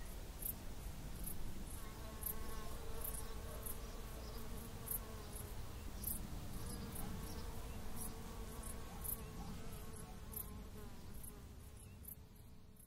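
Faint insect sounds: short high chirps about twice a second over a wavering buzz and a low rumble, fading out near the end.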